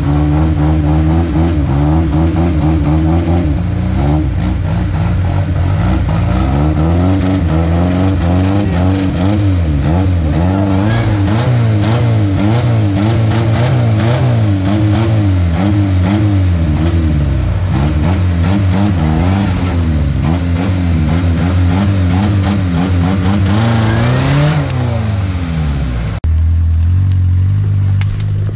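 Off-road vehicle's engine revving hard, its pitch swinging up and down over and over, with one longer climb and drop near the end, after which the sound turns duller.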